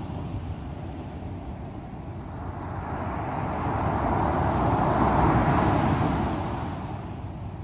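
Sea waves on the shore: a wave surges in about two and a half seconds in, swells to its loudest around the middle and washes away near the end, over a steady low rumble of surf.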